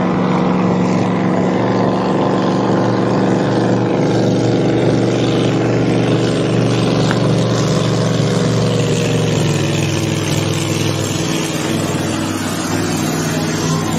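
Racing boat's supercharged engine running at a steady pitch, easing off a little about ten seconds in.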